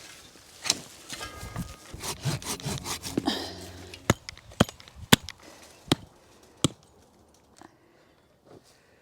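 Digging at an old shrub's root ball: rough scraping and rubbing through soil and woody roots, then about five sharp cracks or knocks a half-second or more apart.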